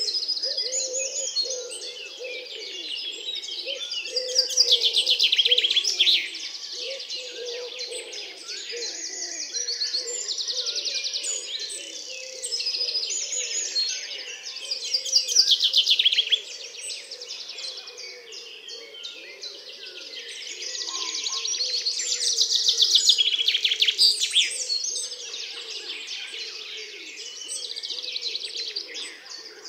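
Woodland bird chorus: a common wood pigeon cooing low underneath, with loud fast trilled phrases and many shorter high notes from Eurasian wren and song thrush. European robin and common chiffchaff join before the middle, and the wren and song thrush drop out near the end.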